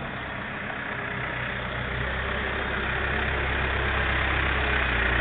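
Backhoe engine running at a steady idle, its hum growing gradually louder.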